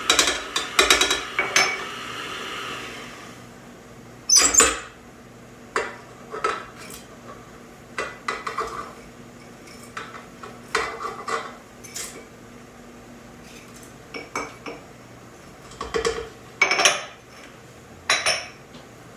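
Sugar poured into a stand mixer's steel bowl, a rustling pour over the first few seconds. Then a string of clinks and knocks as cups and utensils hit the bowl and the counter, the loudest about four and a half seconds in.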